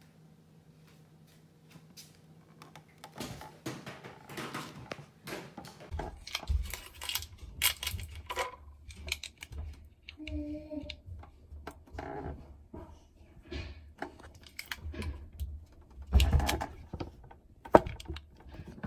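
Irregular light clicks, knocks and rustles of handling and movement close to the microphone, with a brief short call about ten seconds in and two louder knocks near the end.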